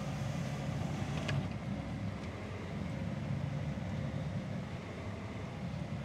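Tractor engine running steadily under load, heard from inside its closed cab as a low drone, with a light click about a second in.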